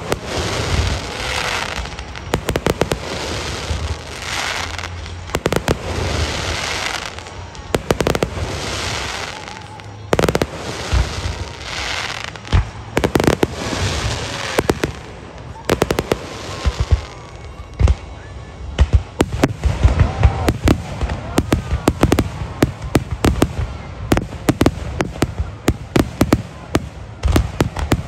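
Aerial fireworks going off in quick succession: booming bursts with waves of crackling, hissing glitter in the first half, then a dense barrage of sharp reports in the second half that stops suddenly near the end.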